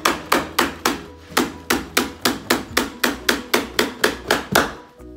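Power stapler firing staples through carpet into a wooden stair, a quick run of about seventeen sharp shots at roughly three to four a second, with a brief pause about a second in.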